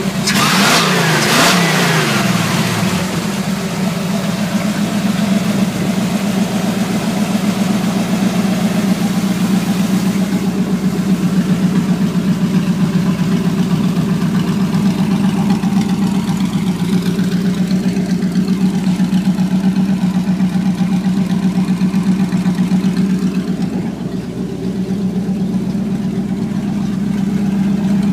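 Newly installed engine of a Dodge D-100 pickup, revved by hand at the carburetor throttle in the first few seconds, rising and falling in pitch, then settling into a steady idle. The owner describes it as running well but slow on ignition timing during break-in.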